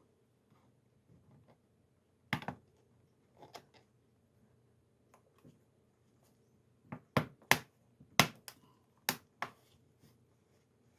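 Plastic top case of an HP laptop being pinched down around its edge, with about ten sharp clicks as its clips snap into place, most of them bunched together in the second half.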